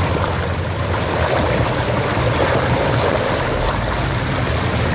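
Rushing, splashing river water as a side-by-side UTV wades through a shallow rocky stream, with its engine running low underneath the water noise.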